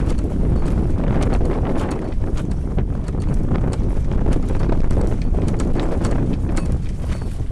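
Gale-force wind buffeting the microphone in a heavy low rumble, over the rapid irregular cracking and clattering of a loose sail and canvas flogging in the wind. The headsail's sheet has pulled its stopper knot out, so the sail is flogging unrestrained.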